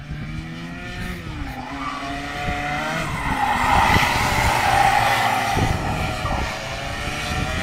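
Two 125 cc two-stroke racing kart engines, their pitch falling as they brake into a hairpin and rising as they accelerate out. The engines grow louder toward the middle as the karts pass nearest, with a rasping hiss over them.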